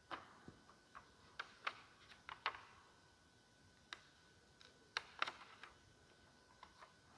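Faint, irregular clicks and taps, about a dozen scattered over several seconds, as the pages of a large altar missal are handled and turned.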